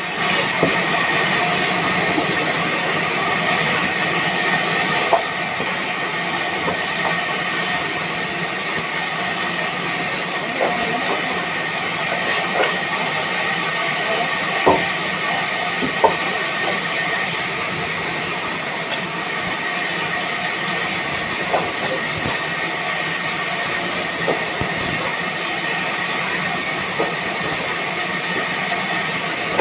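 Woodworking machinery running steadily with a continuous hiss. A higher hissing comes and goes every few seconds, and there are a few sharp knocks.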